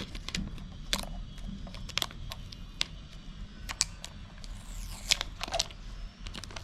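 Scattered clicks and knocks of hands handling a CPAP machine's humidifier chamber while its side knob is turned loose.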